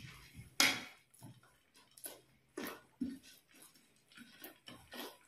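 Close-up eating sounds: fingers mixing puffed rice with ghugni on plates, and chewing, heard as a string of short, irregular crackles and clicks. The sharpest one comes about half a second in.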